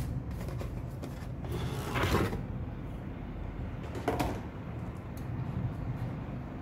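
Camera-box packaging and accessories being handled: a few short scrapes and rustles, about two seconds in and again about four seconds in, over a low steady hum.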